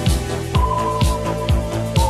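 Background music with a steady beat: a kick drum about twice a second, light cymbal ticks between the beats and held keyboard notes, with a new, higher held note coming in about half a second in.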